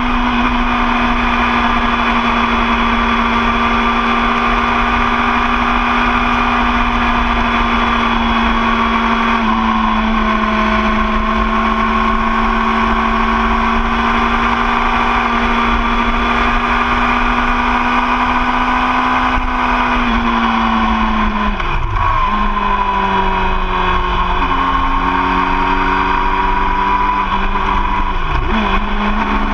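2013 Yamaha YZF-R6's inline-four engine running steadily at road speed, with wind and road noise. Its note steps slightly about a third of the way in, falls about two-thirds of the way through, and rises a little again near the end.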